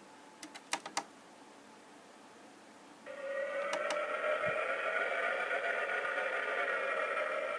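A few small plastic clicks as the Diamond Select Enterprise-A toy's sound button is pressed, then, about three seconds in, a steady droning starship sound effect with several held tones from the toy's small built-in speaker.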